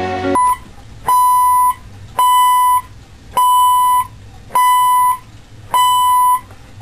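Electronic alarm clock beeping: one steady pitched beep about half a second long, repeating a little faster than once a second, six times. A song cuts off just before the beeping begins.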